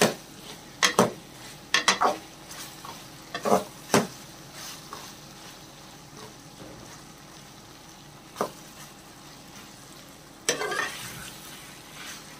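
Steel ladle scraping and stirring chicken and taro curry in a metal pot, over a faint steady sizzle as the curry is fried dry. Several scrapes come in the first four seconds, then a lull, then more scrapes about eight and ten seconds in.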